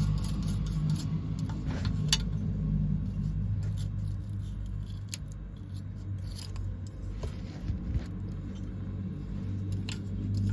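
Scattered small metallic clicks and scrapes of hand tools being handled over a steady low hum.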